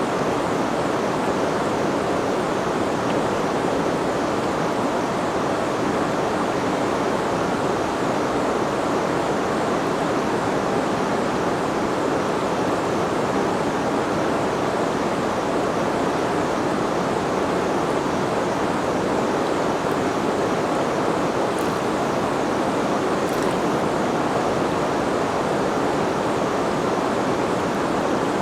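River water rushing, a steady, unbroken wash of flowing water.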